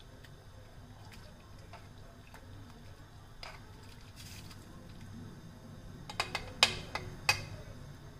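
Kitchen tongs stirring noodles in a steel pot of water, with faint scattered clicks, then a quick run of sharp clinks of the tongs against the pot near the end, the loudest one ringing briefly.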